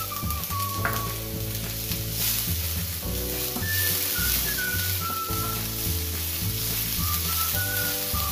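Chopped onion sizzling in a stainless steel frying pan, stirred with a wooden spatula. Background music with a bass line and a high melody plays throughout.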